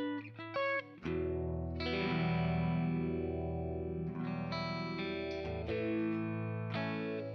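Electric guitar played through a Kemper profiler's Hiwatt amp profile, with compressor, reverb and a modulation effect: a few quick notes, then a chord held for several seconds from about a second in, wavering as it rings, then quick notes again near the end.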